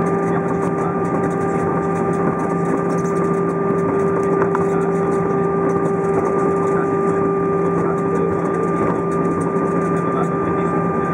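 Steady cabin noise of an Airbus A320 rolling out on the runway after landing, ground spoilers raised: a constant engine hum with a few steady tones over a low rumble, heard from inside the cabin.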